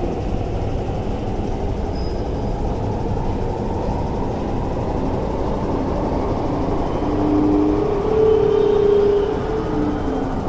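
Metro train pulling out of an underground station behind platform screen doors: a steady rumble of wheels and running gear, with a whine coming in and growing louder over the last few seconds as it accelerates away.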